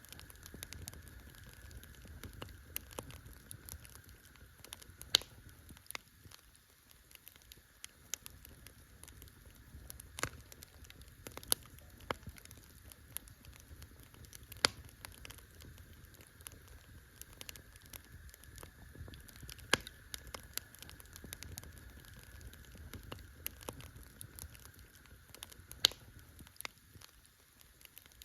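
Campfire crackling: irregular snaps and pops of burning wood over a low, steady hiss, with several sharper, louder pops scattered through.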